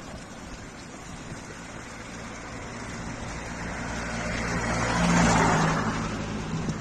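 A motor vehicle passing by, its engine and tyre noise growing louder to a peak about five seconds in, then fading.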